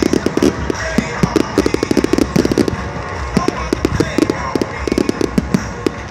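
Fireworks going off in a rapid, dense run of sharp bangs and crackles, many a second, with music playing underneath.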